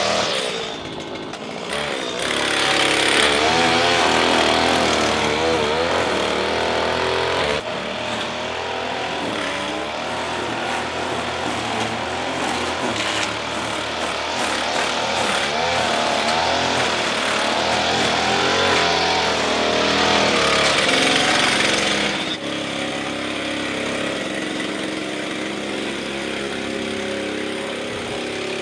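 Petrol string trimmer running and cutting grass, its engine revving up and down unevenly. It eases off briefly about a second in and is fainter and more distant for the last several seconds.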